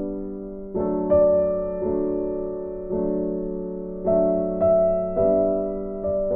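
Background music: a soft electric piano playing slow sustained chords, a new chord struck about once a second and fading away.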